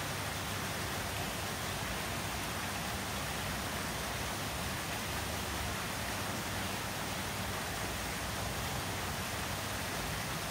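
Steady hiss of fountain water running from wall spouts and splashing into a shallow basin.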